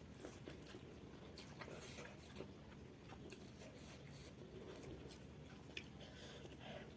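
Faint chewing of instant noodles, with scattered soft mouth clicks and smacks.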